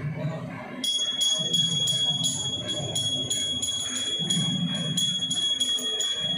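Small metal hand cymbals or bells struck in a steady rhythm of about three ringing strokes a second, starting about a second in, as the accompaniment to a Thiruvathirakali song, with a low steady sound underneath.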